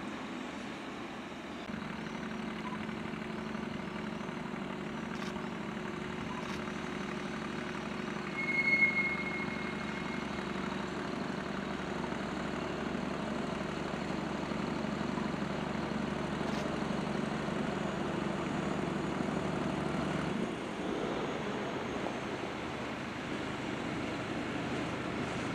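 Diesel locomotive engine running steadily as the locomotive rolls slowly over the station points, with a brief high squeal about nine seconds in. The engine note drops suddenly about twenty seconds in.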